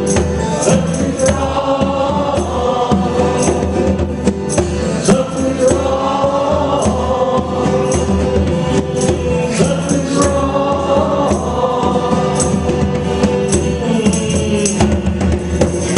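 Live band music: several voices singing in harmony over a steady beat of hand-played conga drums.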